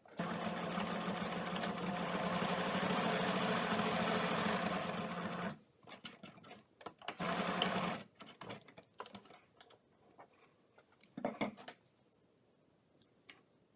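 Pfaff select 4.0 sewing machine stitching a seam for about five and a half seconds, stopping, then running again for about a second to lock the stitch at the end of the seam. Faint clicks and handling noises follow as the fabric is taken out from under the foot.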